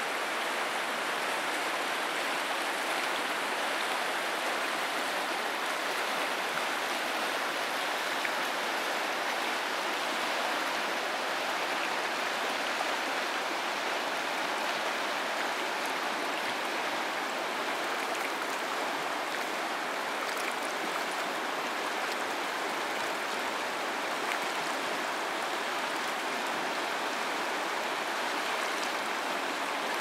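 Fast-flowing stream water rushing steadily, an even unbroken rush.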